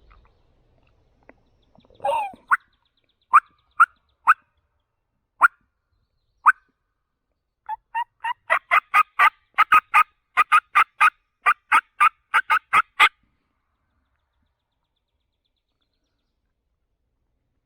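Turkey clucks and yelps, loud and close. A lower, longer note comes about two seconds in, then a few single sharp clucks. Near the middle an even run of about twenty yelps follows at roughly four a second, then stops.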